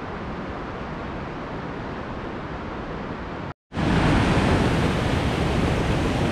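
Steady rush of a mountain stream. It drops out for a moment about three and a half seconds in, then comes back louder and fuller: whitewater tumbling over boulders close by.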